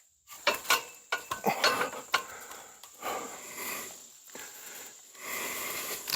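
Repeated clicks, knocks and scrapes of a metal ladder stand being worked into place against a tree, with heavy breathing in between.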